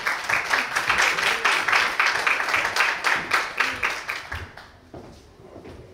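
Audience applauding, many hands clapping at once, the clapping dying away about four and a half seconds in.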